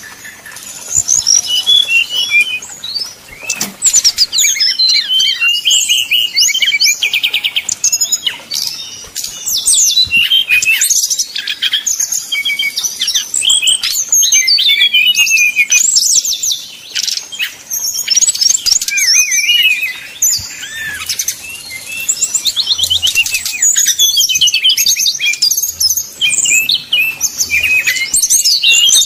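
Brown-chested jungle flycatcher (SRDC) singing a fast, almost unbroken song of varied whistles and chattering trills, with short pauses about 3, 11 and 20 seconds in.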